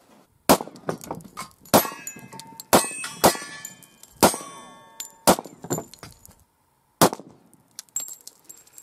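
Handgun shots fired one after another, about seven at uneven intervals of around a second, with ringing metallic clinks between them.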